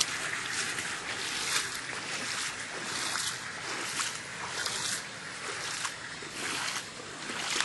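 Water rushing steadily, a continuous hiss broken by frequent brief louder splashy bursts.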